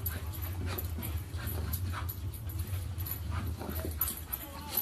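A small dog's short, faint whines and yips over a steady low hum, with scattered light clicks.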